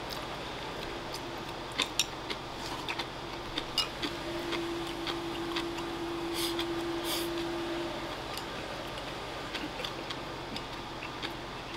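Chopsticks clicking against ceramic bowls and a man eating rice and pickled cabbage: scattered light clicks and ticks, with two short eating noises a little past the middle as the rice goes into his mouth. A faint steady hum sits under it for a few seconds in the middle.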